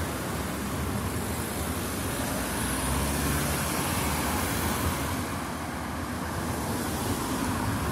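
Road traffic: cars driving past one after another with steady tyre and engine noise. A low rumble swells about three seconds in as a vehicle passes close.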